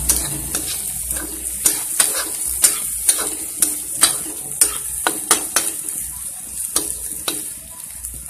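Peas and ginger-garlic paste frying in oil in a kadai, with a steady high sizzle, while a stirring utensil scrapes and taps against the pan about twice a second. The stirring eases off near the end.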